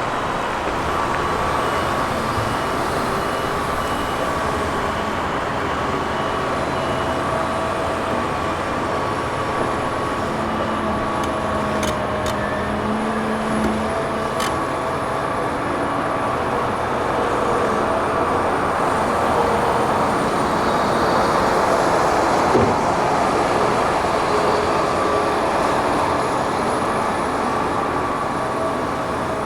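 Heavy diesel construction machinery, excavators and a dump truck, running steadily with an even engine and hydraulic drone, swelling a little past the middle, with a brief knock about two-thirds of the way in.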